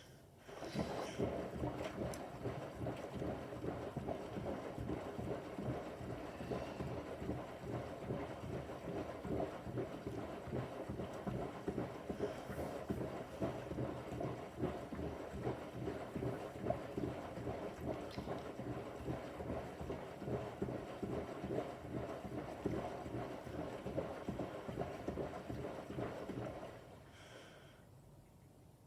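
Bosch washing machine drum tumbling a load of pillows in water: a rough, steady sloshing churn with many soft thuds. It stops near the end as the drum pauses in its wash rotation.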